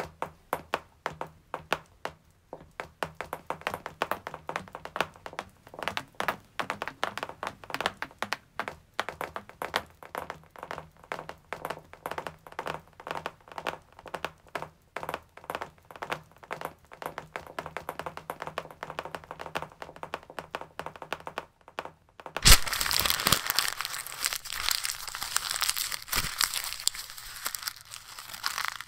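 Hand-made sound-effect track for a stop-motion animation: a fast, uneven run of sharp clicks and cracks, several a second, then about three-quarters of the way through a sudden, louder rustling noise that carries on to the end.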